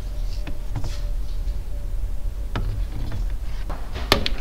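A wooden paint stick and a metal gallon paint can being handled while paint is stirred and then poured, giving a few light knocks and taps, the sharpest pair near the end. A low steady hum runs underneath.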